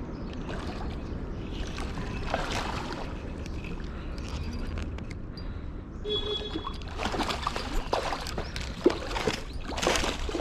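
Water sloshing and splashing in irregular swishes over a steady low rumble, busier in the second half.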